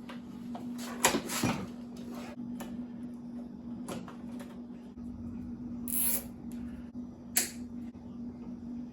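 A few short clicks and knocks as the mower's pull-cord holder is fitted back onto the new handle, over a steady low hum.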